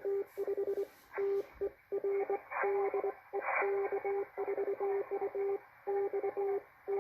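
Morse code (CW) signal received on a Malachite DSP SDR shortwave receiver: a single steady beep keyed on and off in short and long elements, in groups with short pauses between them, over a background of band hiss.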